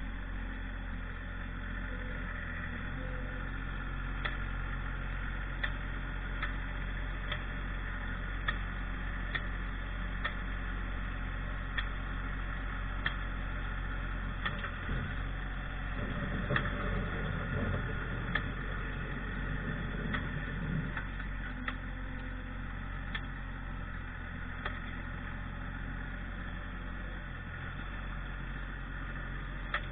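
Tractor engine running steadily, with faint sharp ticks roughly once a second.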